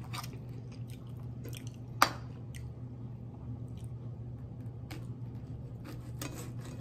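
A person chewing food with soft mouth sounds, and a knife and fork scraping and clicking on a ceramic plate while cutting a sausage. One sharp click about two seconds in, over a steady low hum.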